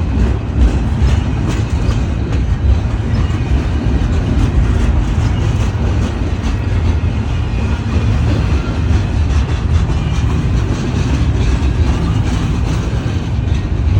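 Freight cars of a long train rolling past slowly: a steady low rumble of steel wheels on the rails with a continual stream of clicks from the wheels and couplings.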